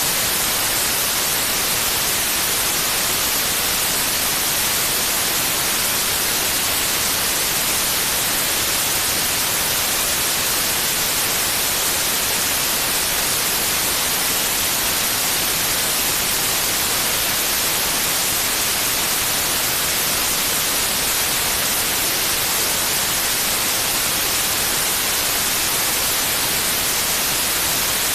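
Steady white noise, an even hiss, strongest in the high frequencies, with no change in level.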